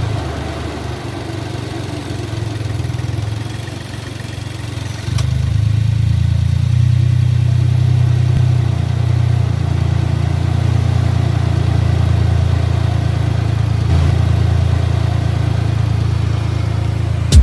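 A vehicle engine idling with a steady low hum that gets louder about five seconds in and then holds steady.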